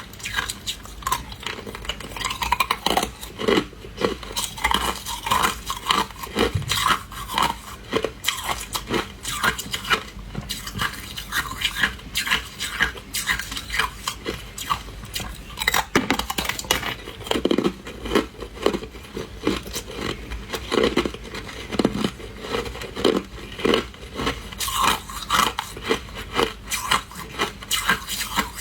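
Hard ice being bitten and chewed, a continuous irregular run of sharp crunches and cracks.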